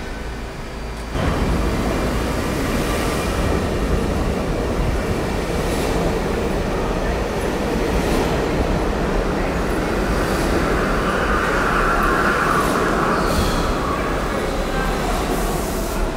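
R68 subway train running past a station platform at speed: a loud, steady rumble and rattle of steel wheels on the rails that jumps louder about a second in. A higher hum swells about ten seconds in and fades some three seconds later.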